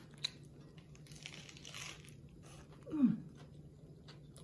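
A person chewing a mouthful of burger on a soft brioche bun, with small wet mouth clicks and a soft crunchy patch about a second in. About three seconds in comes a short falling vocal sound.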